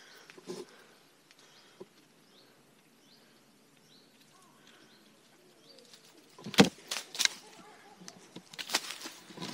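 Faint bird chirps in the quiet first half, then, from about six and a half seconds in, a few loud, sharp cracks and rustles of wood and twigs: a long branch striking and shaking tree branches to knock down a drone caught in them.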